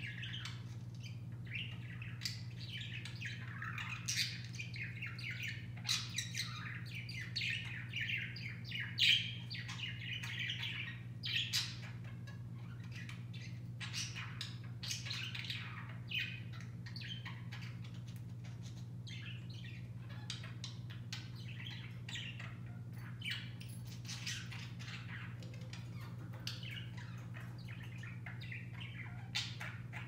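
Budgerigars chattering in quick, warbled chirps and short squawks, busiest in the first half and sparser later, over a steady low hum.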